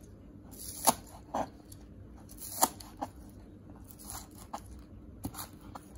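Chef's knife cutting scallions into short lengths on a plastic cutting board: about eight crisp, irregularly spaced chops, each a crunch of the stalks ending in a knock of the blade on the board.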